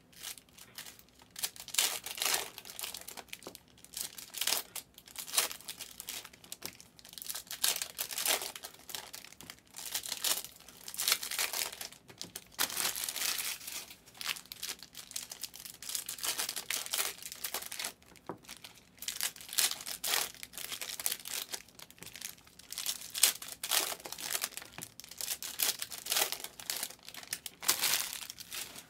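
Trading-card packs and boxes being handled and unwrapped: plastic and foil wrapping crinkling and tearing in irregular bursts.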